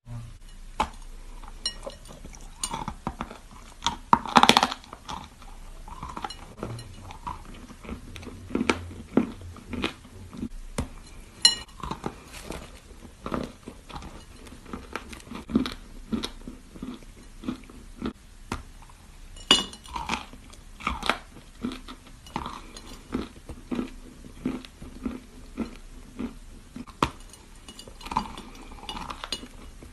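Close-up crunching and chewing of dry edible chalk: sharp, irregular crackles and snaps as pieces are bitten off and ground between the teeth, with a louder bite about four seconds in.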